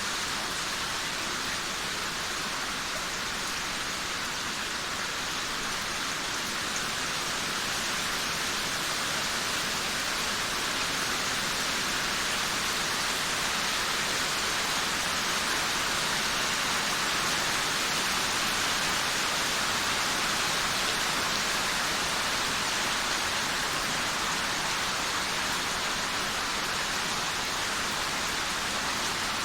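Heavy rain falling steadily, an even hiss with no thunder, swelling a little in the middle.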